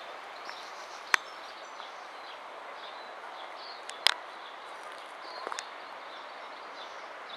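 Garden ambience: a steady background hiss with faint, scattered bird chirps. Two sharp clicks stand out, about a second in and about four seconds in, with a short run of small ticks shortly after five seconds.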